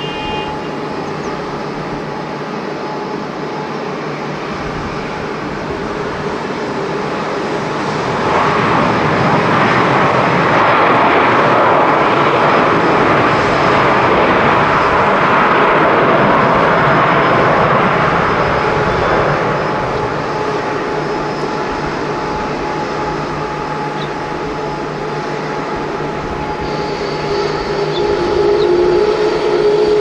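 Jet engines of an ANA Boeing 787 landing and rolling out on the runway. The engine noise swells about eight seconds in, stays loud for about ten seconds, then fades back to a lower steady level.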